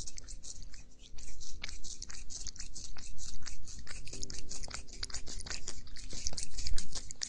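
A cat chewing and crunching its food, with rapid crisp bites several a second.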